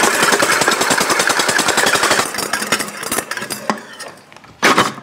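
Stand mixer running on high, its wire whisk whipping egg whites in a stainless steel bowl with a fast, rattling whir. The sound dies down after about two seconds, and there is one short loud noise near the end.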